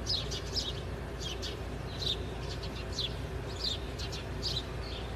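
Small birds chirping: short, high, falling chirps repeated about twice a second over a low steady hum.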